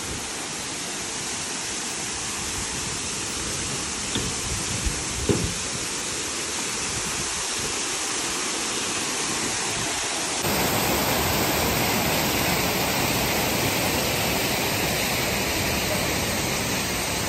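Steady rushing of fast-flowing mountain water, a waterfall or torrent, as an unbroken hiss-like wash. About ten seconds in it jumps louder and brighter at a cut to another shot of water. There are a couple of faint knocks early on.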